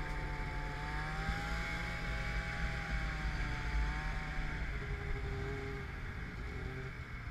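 Snowmobile engine running under way, its pitch wavering slightly, then getting quieter near the end as the sled eases off and slows.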